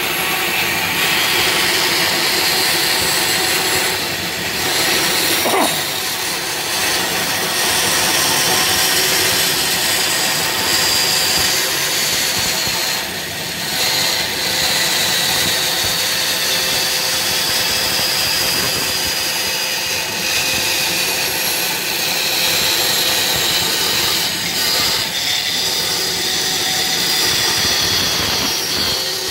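Multi-speed bandsaw running and cutting a curve through a thick stack of plywood, a steady whine with saw noise that dips briefly twice.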